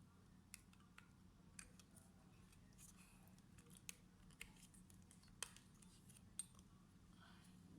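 Near silence with faint, irregular small clicks and ticks of hands handling a laptop's plastic and metal parts and tools during a RAM upgrade, the sharpest two a little past halfway, over a faint steady low hum.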